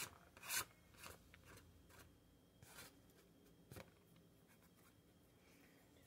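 Bag of shredded cheddar crinkling faintly as the cheese is shaken out of it, a few quick rustles in the first second and a couple more later.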